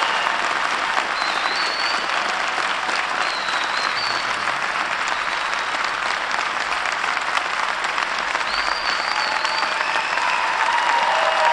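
Large audience applauding steadily, with a few shrill calls rising over the clapping.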